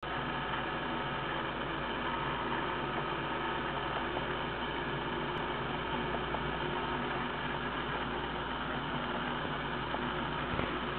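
Steady background hiss with a faint, even hum and no distinct events: recording noise and room tone.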